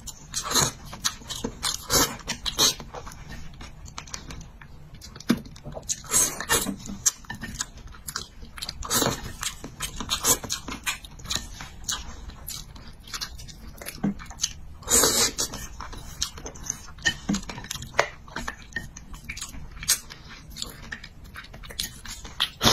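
Close-miked eating of spicy braised fish: wet chewing, mouth clicks and smacks, with a few longer slurps of food in a runny sauce.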